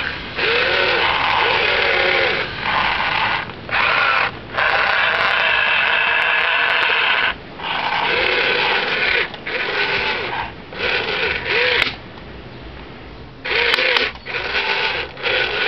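Electric motors and gearboxes of a radio-controlled toy wheeled excavator whirring in about a dozen start-stop bursts, each spinning up and winding down in pitch, as the boom, swing and wheels are worked. It is quieter for a moment about twelve seconds in.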